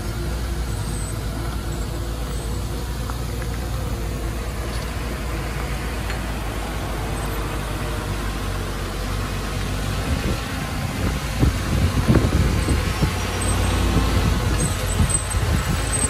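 Heavy diesel engine of earthmoving machinery running under load. About ten seconds in it grows louder and rougher, with irregular knocks and clatter.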